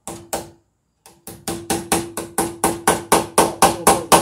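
A hammer tapping in a cable staple. There are two taps, a short pause, then a quick run of taps about four a second that grows louder, each tap with a short ring.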